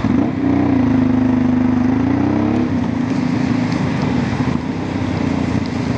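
Honda Transalp motorcycle engine running under way, its note fairly steady with a small shift in pitch a couple of seconds in, over wind and road noise.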